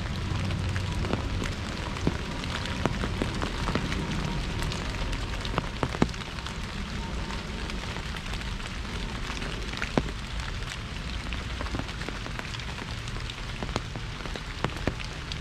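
Rain falling on an umbrella: a steady hiss with many scattered sharp taps from single larger drops.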